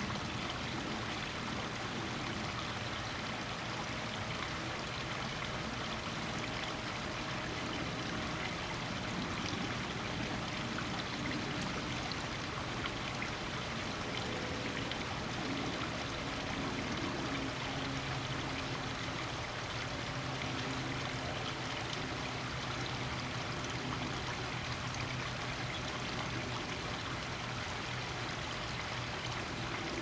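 Garden koi-pond waterfall splashing and trickling into the pond, a steady, even rush of water.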